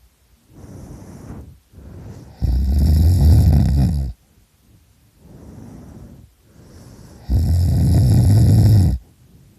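A sleeping man snoring loudly: two long, heavy snores about five seconds apart, each lasting close to two seconds, with quieter breathing between them.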